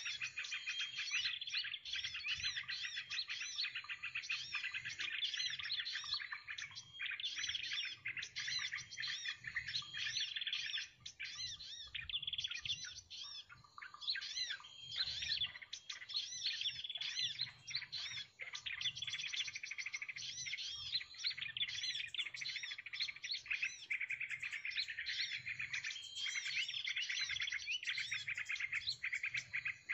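Many small birds chirping and calling continuously, a dense overlapping chorus of quick high chirps.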